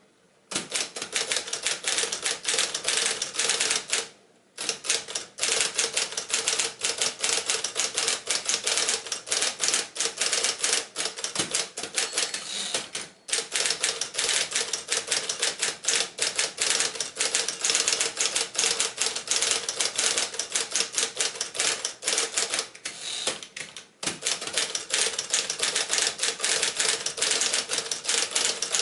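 Smith-Corona 5TE electric portable typewriter being typed on at a brisk pace: a fast stream of key strikes over the steady hum of its running motor, with a few short pauses.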